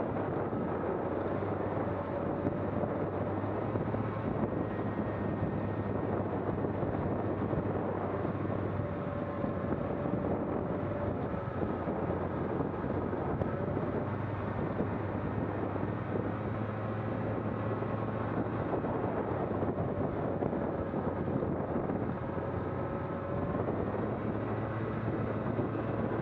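Steady drone of a vehicle on the move: an engine running at an even speed under a constant rush of wind and travel noise, with a faint wavering whine.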